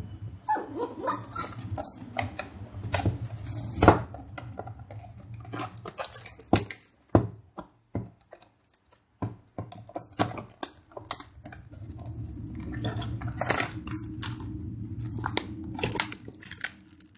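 A plastic blister pack and its cardboard backing being pried and pulled open by hand: an irregular run of sharp plastic clicks, snaps and crackles.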